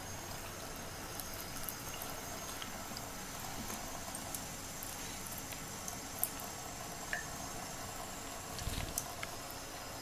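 Thin stream of tap water running steadily into a bathroom sink onto the drain stopper, with a few faint ticks and a soft low bump near the end.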